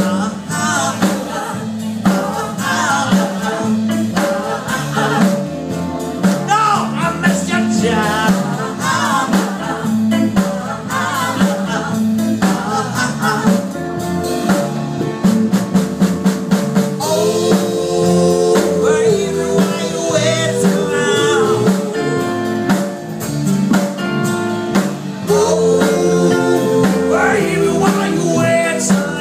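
Live blues band playing: drum kit, guitar and bass keeping a steady groove, with a wavering, bending lead melody on top that grows fuller and brighter about halfway through.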